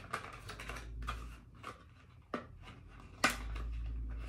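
Small plastic lash packaging being handled: a run of light clicks and rustles, with two sharper clicks in the second half, as a false-eyelash tray is worked out of its case.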